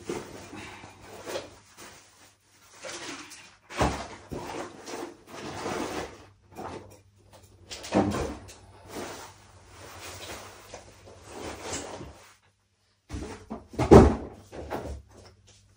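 A paper takeaway food box being handled while eating: irregular rustling with a few sharp knocks, about four, eight and fourteen seconds in, the last the loudest.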